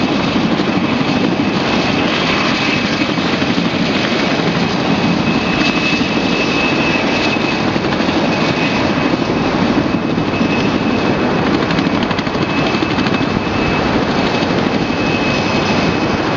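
Rescue helicopter running close by with its rotor turning: a dense, steady rush of turbine and rotor noise with a steady high whine held throughout.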